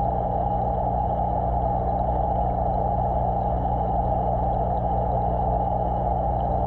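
Steady drone of aquarium equipment picked up by a camera submerged in the fish tank: a constant low hum under an even rushing of moving water, dull and muffled, with no changes or events.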